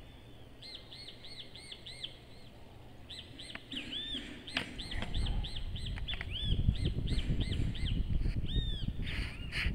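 Small birds chirping over and over in short, arched chirps. A low rumble, like wind on the microphone, joins about halfway through.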